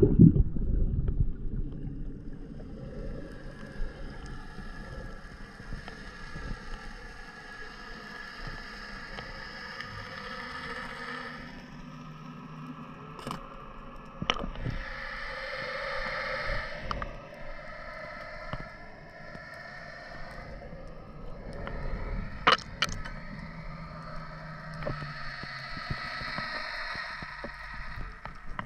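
Underwater sound of a boat engine droning through the water: several steady tones that shift in pitch about halfway through. A loud rush of water at the start, and a few sharp clicks, the loudest about two-thirds of the way through.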